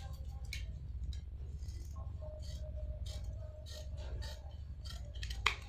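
Scissors snipping through white cloth: a run of short, crisp cuts, with the blades clicking.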